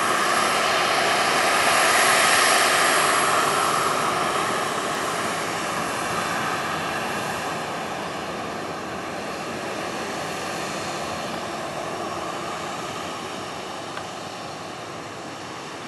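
Jet engines of a taxiing Boeing 737-800: a steady rushing whine with a thin high tone, loudest a couple of seconds in and then slowly fading as the airliner moves away.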